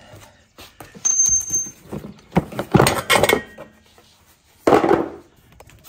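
Clinking and knocking from handling: a brief high squeak about a second in, then a flurry of sharp clicks and clanks, and one more knock near the end.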